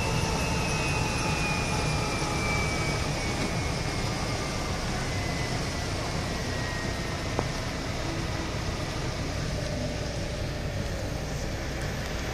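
Military transport helicopter on the ground running over a steady rumble and rushing noise. A high whine slowly falls in pitch through the first half.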